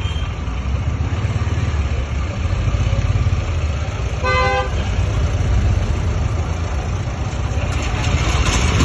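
10 kW portable petrol generator set running steadily with a low hum. About four seconds in, a vehicle horn gives one short toot.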